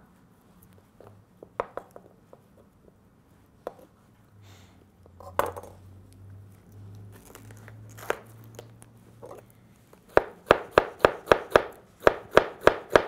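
Kitchen knife cutting a green bell pepper into thin strips on a cutting board. There are a few scattered taps at first, then from about ten seconds in a quick, steady run of cuts, about four a second.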